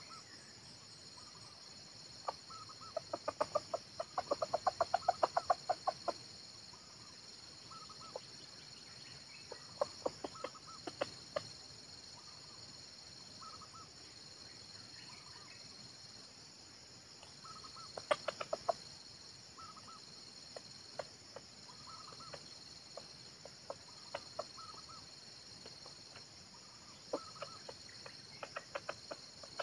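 Red junglefowl clucking in quick runs of short clucks, the longest and loudest run a few seconds in, with shorter runs about a third of the way through, past the middle and near the end. A steady high drone sits underneath.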